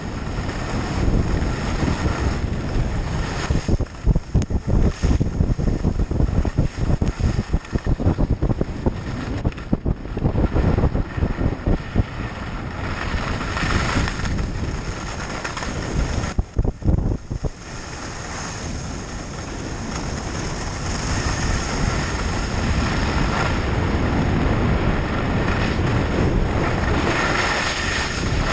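Wind buffeting the camera microphone on a fast downhill ski run in a tuck, gusting and uneven, with the hiss of skis running over groomed snow. It eases briefly a little past halfway, then settles into a steadier rushing hiss.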